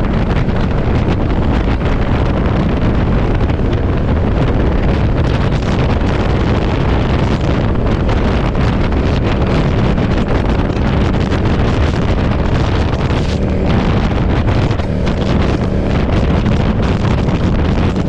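Strong gusty wind buffeting the microphone on a moving motorcycle, a steady rush with the engine's even running note beneath it.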